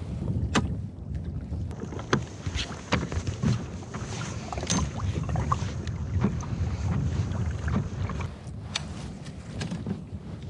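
Irregular knocks and clicks of gear being handled against a fishing kayak, over a low rumble of wind on the microphone.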